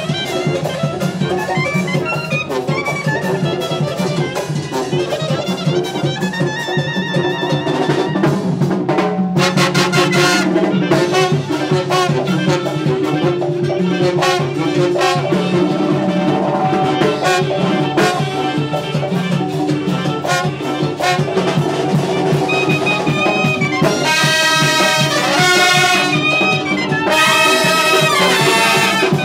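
Brass band music playing without a break, with louder, higher brass phrases near the end.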